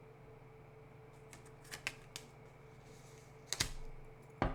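Tarot cards being handled on a table: a few light clicks, then two louder sharp taps near the end, over a faint steady hum.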